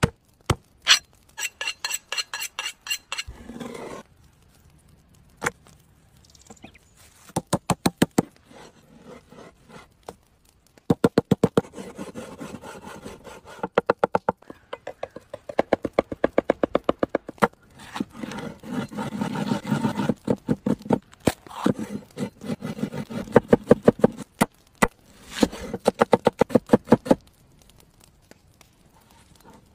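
Cleaver chopping raw meat into mince on a wooden board, in rapid runs of blows with short pauses between.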